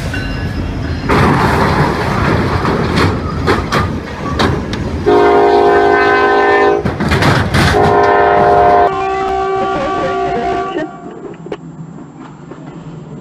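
A diesel freight locomotive crashes through a tractor-trailer at a level crossing. There is a burst of crunching metal and repeated bangs from about a second in, and the train's air horn sounds in two long blasts, about 5 s and 8 s in. The sound falls much quieter after about 11 s.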